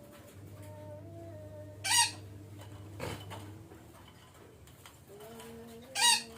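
Red-breasted parakeet giving two short, loud, harsh squawks about four seconds apart.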